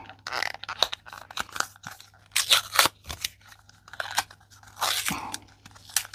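Small cardboard product box being torn open by hand: a run of short, irregular rips and crackles, the packaging stuck fast around the blush compact inside.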